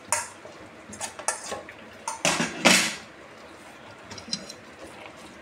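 Kitchenware clinking and knocking as chopped salad vegetables are tipped from a plate into a bowl: a few light clicks, then two louder knocks between two and three seconds in.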